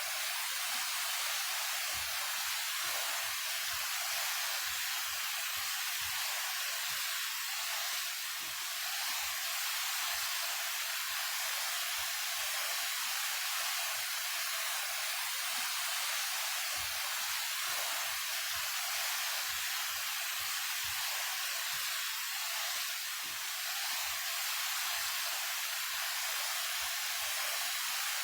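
A 28-metre waterfall running after rain: a steady, even rush of falling water, hissy, with little deep rumble.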